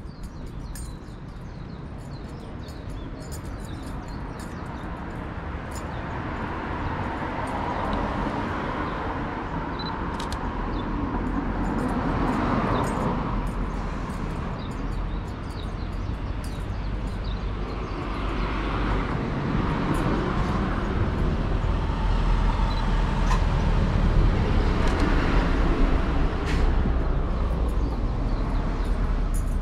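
Road traffic passing along a city street: the noise of cars swells and fades about twelve seconds in and again through the second half, over a steady low rumble.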